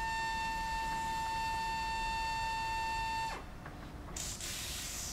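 Pneumatic power tapper's air motor running with a steady whine while cutting threads through a drilled hole in cast iron. The whine drops away in a short falling glide about three seconds in as the motor stops, followed by a brief hiss near the end.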